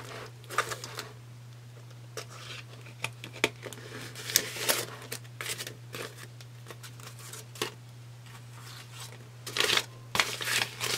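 Paper banknotes and a clear plastic zippered pouch rustling and crinkling in short, irregular bursts as cash is pulled out of the pouch and handled, with soft clicks in between; a louder flurry of rustling comes near the end as the bills are fanned out.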